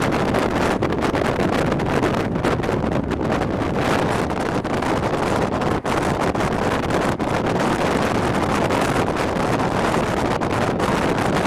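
Steady rushing wind noise on the microphone, dipping briefly twice near the middle.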